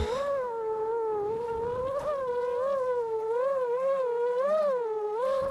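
FPV quadcopter motors whining, the pitch rising and falling over and over as the throttle changes.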